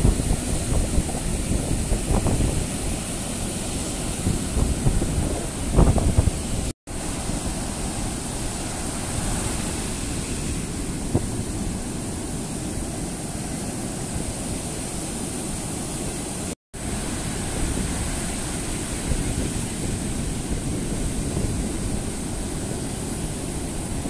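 Rough surf breaking and washing up a sandy beach, the heavy seas of the southwest monsoon, with wind buffeting the microphone. The sound drops out suddenly for an instant twice, about seven and seventeen seconds in.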